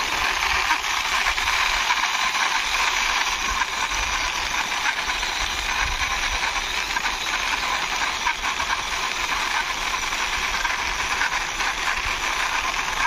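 Plastic wheels of a toy double-decker bus rolling along rough concrete as it is pushed by hand: a steady gritty rolling hiss, with low wind rumble on the microphone.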